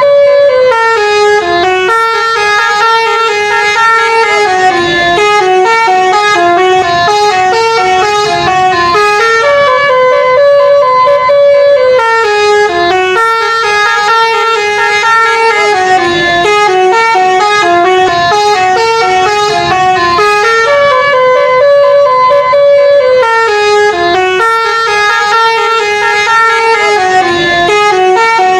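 A 'telolet' multi-tone bus horn plays a stepping, chord-like melody without a break, its tune repeating roughly every ten seconds.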